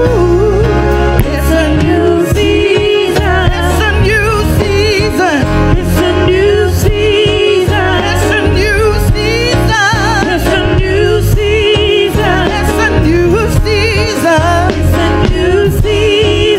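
Live gospel praise music: women singing into microphones with strong vibrato over electronic keyboard and a steady beat.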